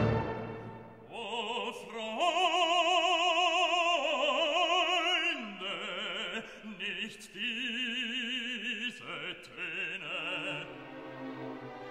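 Recorded operatic singing: one voice holding long notes with wide vibrato, dropping lower in pitch a little over five seconds in, and dying away near the end.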